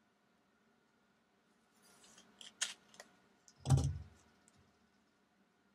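Faint crinkling and a few sharp paper crackles as a sealed kraft-paper envelope is slit and worked open by hand, with a dull thump about two-thirds of the way through, the loudest sound, followed by a couple of small ticks.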